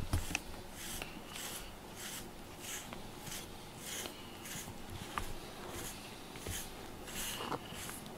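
FURminator deshedding brush raking through a cat's fur and pulling out loose undercoat: a scratchy brushing stroke, repeated evenly a little under twice a second.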